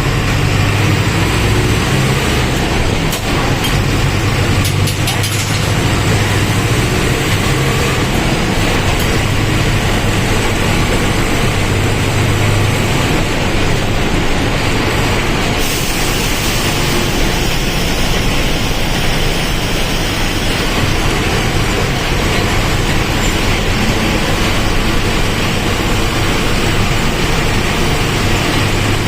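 Mercedes-Benz OF-1722M Euro III bus's front-mounted diesel engine running with the bus under way: a steady low drone. A higher hiss joins suddenly about halfway through.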